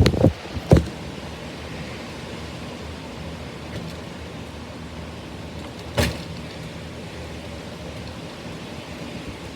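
Steady hiss of heavy rain and strong wind in a storm, with a few knocks in the first second and a single sharp click about six seconds in.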